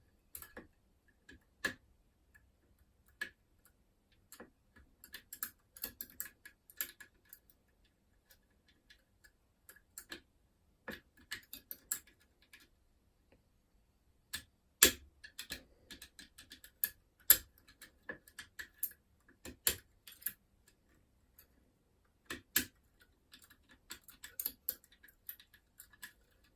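Irregular light metallic clicks and ticks of a curtain pick's wire and tension tool working the levers inside an ERA Fortress 5-lever mortice lock, with a few sharper clicks in the second half.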